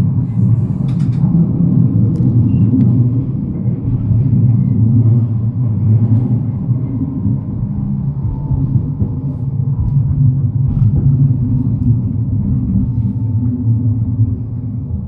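Running noise of an NGT12 low-floor tram heard from inside as it travels along the track: a steady low rumble with a few faint clicks.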